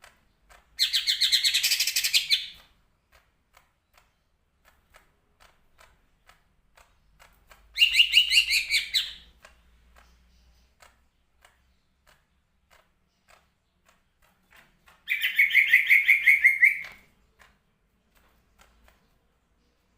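A caged green leafbird (cucak ijo) singing in three short bursts of fast, rapidly repeated notes, each lasting a second or two, several seconds apart.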